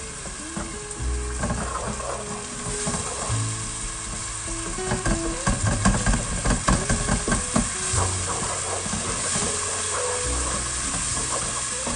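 Masala sizzling as it fries in a pot, while a wooden spatula stirs and scrapes it against the pot; the scraping strokes come thickest in the middle of the stretch.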